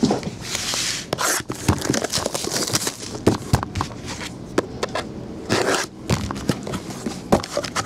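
Plastic shrink-wrap on a sealed trading-card box being cut with scissors and torn open: hissy scraping and crinkling rasps, with scattered clicks and knocks as the box is handled.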